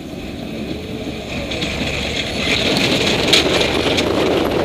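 Heavy truck driving past close by on a gravel road: its engine and its tyres rolling over the gravel grow louder and are loudest about three seconds in.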